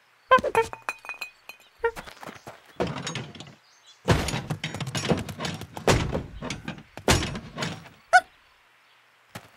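Cartoon slapstick sound effects: a string of thuds and clattering knocks, with a short ringing ping about half a second in and the clatter at its densest in the middle.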